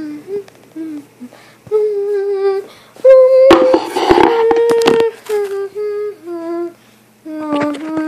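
A child making vocal sound effects: a string of short hummed notes at changing pitches, with a loud burst of hissing and clicking mouth noise about halfway through.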